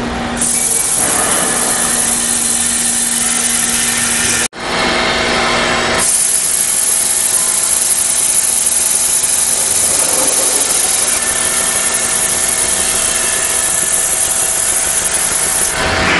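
Ficep Victory 1101 DX single-spindle CNC beam drill line drilling a steel beam, a loud, steady grinding hiss of the bit cutting metal. A low hum runs under it at first. The sound cuts out briefly about four and a half seconds in, and the hiss comes in much stronger from about six seconds.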